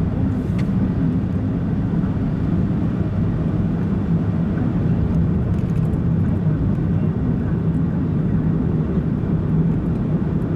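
Steady engine and tyre noise of a car driving along a road at an even pace, a low hum with no changes.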